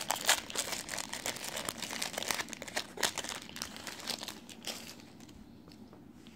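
Trading-card booster pack wrapper crinkling and being torn open, a dense run of crackles that dies down about five seconds in.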